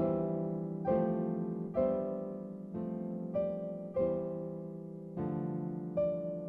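Background piano music: gentle chords struck about once a second, each fading before the next.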